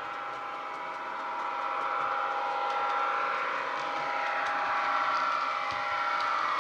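Diesel engine sound of a model Class 150 Sprinter DMU, played by its Legomanbiffo DCC sound decoder through the model's small speaker. It runs steadily and grows louder as the unit approaches, with a few faint ticks.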